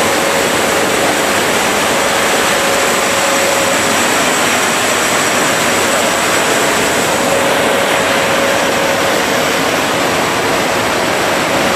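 Steady loud roar inside a military transport aircraft's cabin in flight: engine noise and rushing air through the open jump door, with a faint steady hum running through it.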